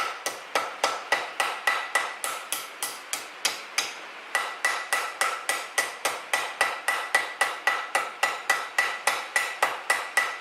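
Blacksmith's hammer striking hot steel bar on an anvil in a steady run of blows, about three or four a second, each with a metallic ring, drawing out and rounding the stem of a forged leaf. The blows pause briefly about four seconds in.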